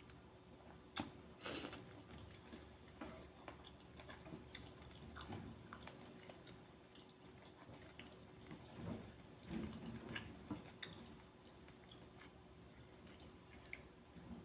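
Quiet eating of spicy Thai suki noodle soup: soft chewing and small wet, squishy mouth sounds, with a couple of sharp clicks about a second in.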